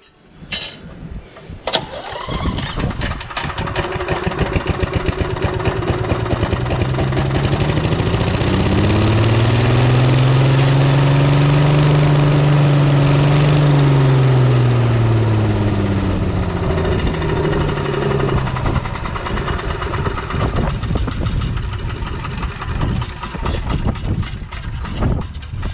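Wood chipper's small gasoline engine starting up and running, speeding up to a high steady speed in the middle, then slowing again and running unevenly. It is not keeping up its fuel supply, which the owner suspects is the carburettor's diaphragm.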